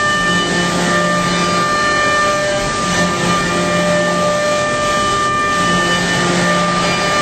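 Ceramic end mill cutting an Inconel turbine blade at high speed on a Starrag LX 251 five-axis machining centre: a loud, steady whine of several held tones over a hiss. A lower hum swells in and out a few times.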